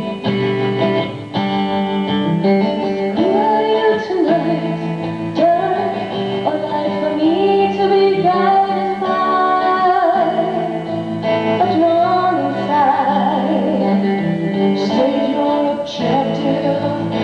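A band playing the introduction of a song, held chords under a wavering melody line.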